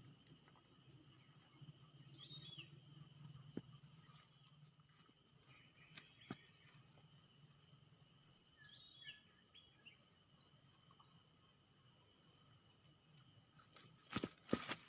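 Faint outdoor ambience: a steady high insect drone with several short, falling bird chirps and a few scattered clicks. Near the end come two or three sharp knocks, the loudest sounds heard.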